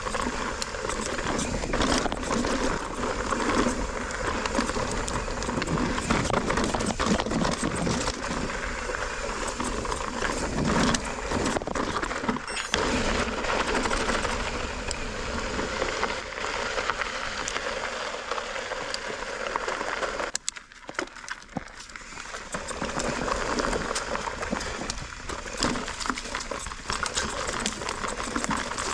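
Mountain bike riding over rough, rocky trail: a steady rush of tyre and trail noise with frequent clicks and rattles. It eases briefly about twenty seconds in, then picks up again.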